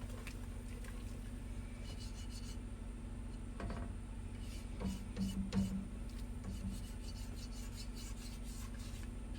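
Spoon stirring and scraping in a cooking pot, with a few light knocks against the pot, over a steady low hum.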